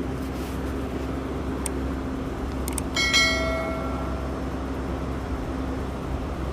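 A single bell-like metallic ring about three seconds in, fading out over about a second and a half, over a steady low hum. A few faint clicks come just before it.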